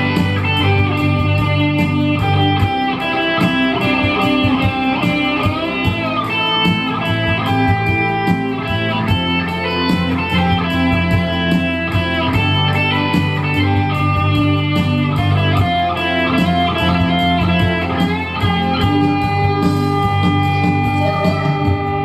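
Guitar music playing, a plucked melody over a steady bass, with some notes bending in pitch.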